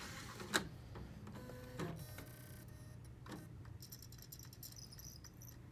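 Blu-ray drive closing its tray and trying to load a disc: a few faint clicks with a low motor whir in the first three seconds, then a rapid high-pitched chattering from about four seconds in as the drive works at the disc. A zip tie in the tray stops the drive's magnetic clamp from lifting the disc, so the disc fails to load.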